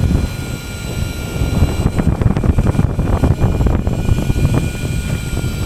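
A fishing boat's engine running, with wind buffeting the microphone, heard as an uneven low rumble with a faint steady whine. Light knocks come now and then.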